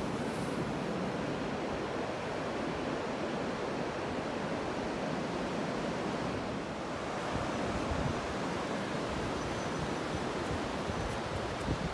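Steady rush of ocean surf mixed with wind.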